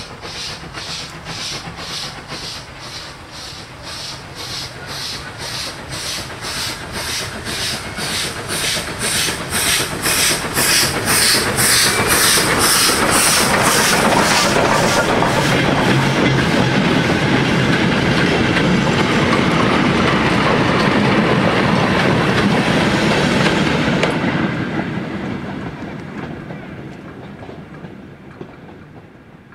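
Steam locomotive passing: its exhaust beats, about two a second, grow louder as it approaches, then the rumble and clatter of its wheels and wagons take over. The sound fades away over the last few seconds.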